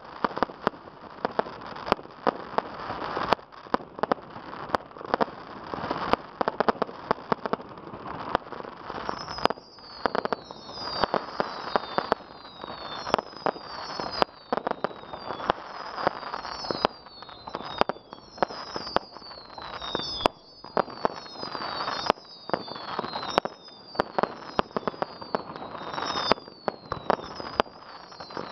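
Fireworks display: a dense run of sharp bangs over steady crackling. From about a third of the way in, many short whistles falling in pitch join, one after another.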